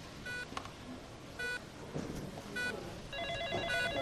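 Electronic beeps repeating steadily about once a second, typical of a hospital patient monitor. Over a low background murmur, an electronic telephone starts trilling about three seconds in.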